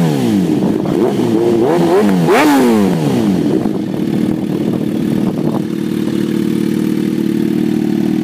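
2007 Suzuki GSX-R1000's inline-four engine, warmed up, running loud through an M4 aftermarket exhaust. It is blipped up a few times in the first three seconds or so, each rev falling quickly back, then it settles into a steady idle.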